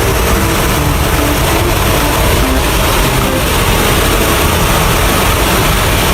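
Heavy vehicle engine running steadily under a loud, even hiss.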